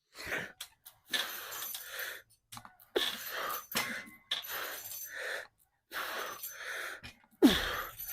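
A man breathing hard from exertion during a heavy leg workout: a series of forceful, noisy exhales and gasps about a second apart, with a short grunt near the end.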